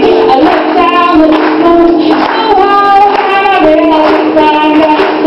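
A young female voice singing a song with ukulele accompaniment, in phrases with held notes.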